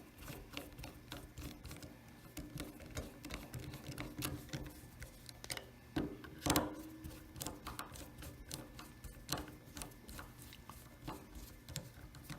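Small irregular clicks and ticks of a Phillips screwdriver turning screws into a hair clipper's switch cap, with a couple of louder knocks about six seconds in.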